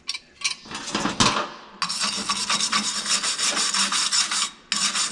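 A few metal clanks as the clamped sheet-metal piece is handled, then a hand wire brush scrubbing the brazed steel sheet metal in quick back-and-forth strokes, with a short pause near the end, cleaning up the brazed plug weld.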